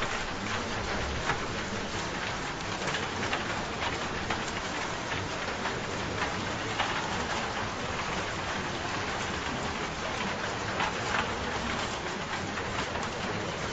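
Steady rain falling: an even hiss with scattered louder drop hits.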